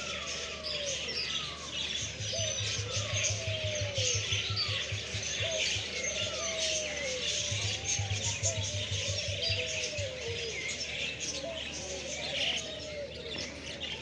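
Many small birds chirping and twittering together in an aviary, a continuous dense chatter of short high calls.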